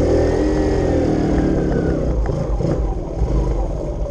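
Kawasaki KLX110 pit bike's small air-cooled single-cylinder four-stroke engine running as it rides a dirt trail. The revs ease off a little before halfway and the note turns rougher and lower, with scattered knocks.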